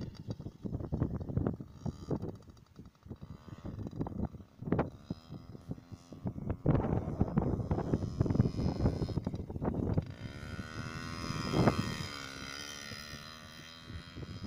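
Yamaha PW50 mini dirt bike's small 49cc two-stroke engine, revving up and down with the throttle as it rides.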